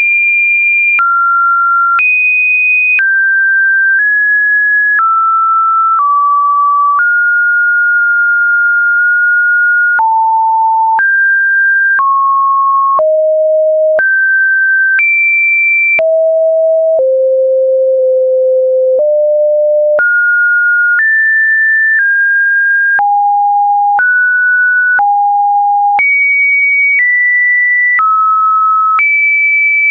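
Electronic pure sine tones, a new steady pitch about every second, jumping unpredictably up and down between a low hum-like tone and a high whistle-like one, with a faint click at each change of pitch.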